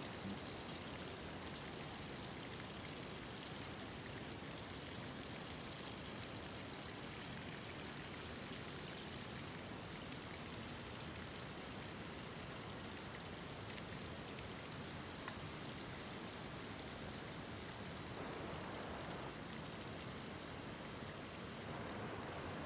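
Mountain stream running over rocks: a steady rushing of water.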